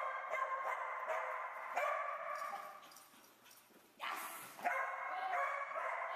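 Small dog barking and yipping excitedly in quick, near-continuous volleys while running the agility course, easing off about three seconds in and starting again a second later.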